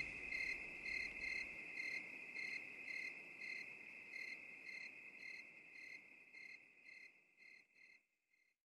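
Faint chorus of night insects: a steady high trill with regular chirps over it, about three a second, slowly fading out and stopping about eight seconds in.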